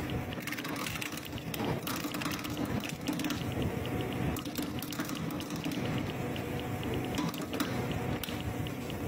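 A motor-driven toothed steel wheel on a coconut husking machine spinning and tearing fibrous husk from a coconut held against it: a steady motor hum under rapid, even ticking and scraping.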